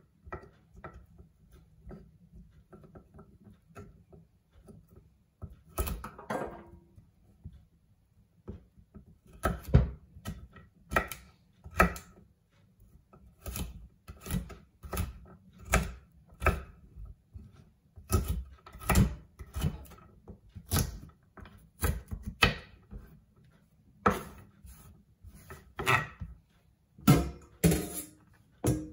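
Kitchen knife slicing a carrot on a wooden chopping board. The blade knocks sharply against the wood about once a second, after soft light taps in the first several seconds.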